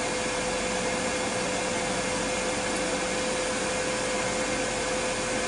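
Ninja Foodi's internal fan running steadily in its cool-down cycle after baking: an even whir with a steady hum.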